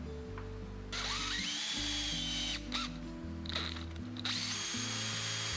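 Power drill boring into plywood, run twice. Each time its motor whine rises as it spins up, holds steady while cutting, then stops. Background music plays underneath.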